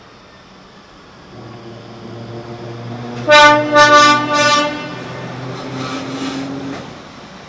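Vintage Sydney 'Red Rattler' electric train passing with a low hum, sounding its horn in three short blasts in quick succession.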